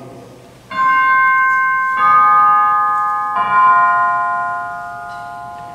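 Altar chimes struck three times at the elevation of the chalice, each strike a lower note, the tones ringing on and slowly fading. They mark the consecration of the wine.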